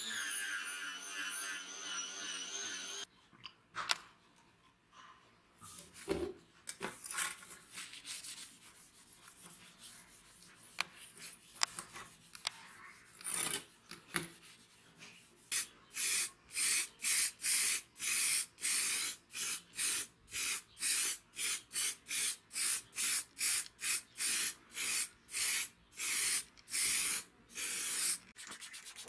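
An aerosol spray can hissing in short, regular bursts, about two a second, through the second half; this is the loudest sound. Before it, an angle grinder with a wire cup brush whirs on metal and stops about three seconds in, then a rag rubs softly on metal.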